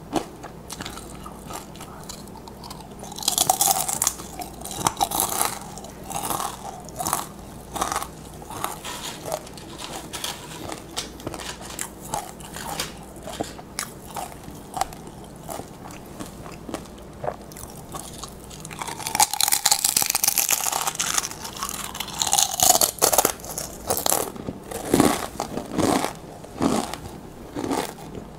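Crisp tortilla chips (nachos) being bitten and chewed: a run of sharp crunches and crackles, with two loud stretches of crunching from fresh bites, about three and about nineteen seconds in.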